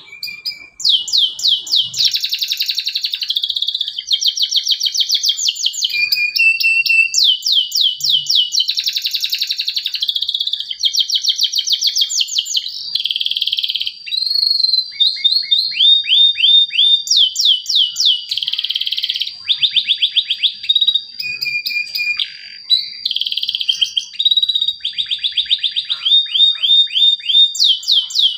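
Male domestic canary song: an unbroken run of fast trills and rolls, rapidly repeated notes that often sweep downward. A high steady whistle is held beneath the trills for several seconds midway.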